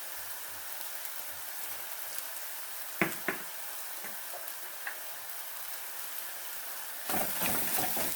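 Onion-tomato masala sizzling as it fries in the pan, with two sharp knocks a little after three seconds in. Near the end it turns louder and busier as the masala is stirred.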